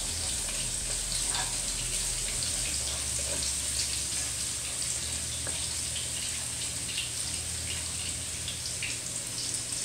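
Minced garlic sizzling in olive oil in a wok, stirred with a wooden spatula: a steady hiss with scattered small crackles.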